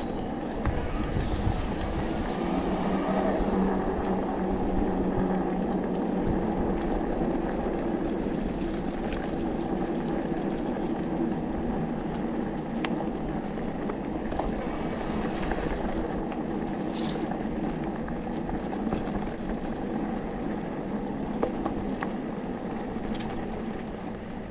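Electric mountain bike rolling over a dirt forest track: steady tyre rumble and crunch with wind on the action camera's microphone, and occasional clicks and knocks from the bike over bumps.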